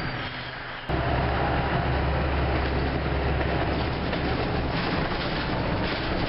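Orion V diesel city bus heard from inside: the engine runs quietly for about a second, then pulls hard with a deep drone as the bus gets moving through the turn, and the drone eases off near the end, leaving road and running noise.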